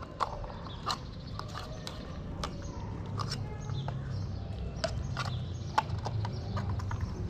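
Irregular sharp clicks and taps of an opened tin can of cat food being handled while a tuxedo cat eats from it, over a low steady rumble.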